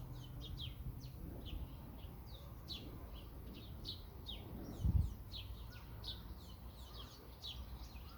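Small birds chirping in the background: many short, quick falling chirps, several a second, with a single dull thump about five seconds in.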